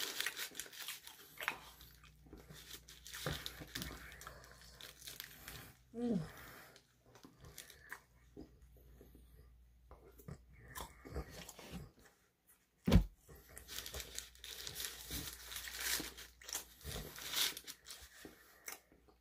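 Close-miked chewing and biting of a grilled shawarma wrap: irregular wet mouth noises and soft crunches, with the odd rustle of the paper wrapper. A single loud thump about 13 seconds in.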